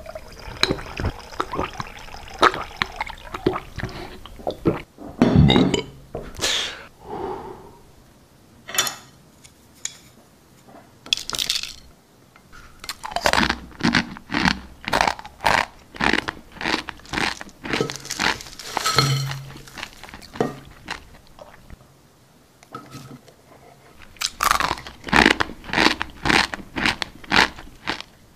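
Water pouring from an electric kettle for the first few seconds, then raw instant noodles being bitten and chewed: bursts of sharp crunches separated by short pauses.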